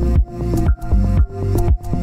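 Background electronic music with a steady beat, about two beats a second, over held chords.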